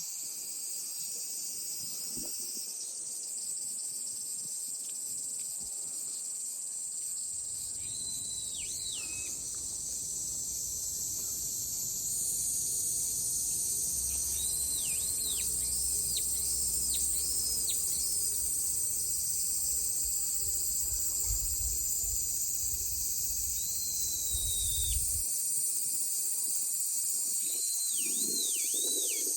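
A steady, high-pitched summer insect chorus, with a bird calling over it in several short runs of swooping whistled notes. A low rumble runs underneath through most of the middle.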